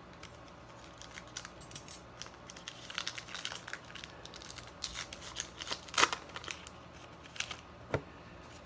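Trading-card packaging being handled and opened: scattered crinkling and crackling with short clicks, and one sharp snap about six seconds in.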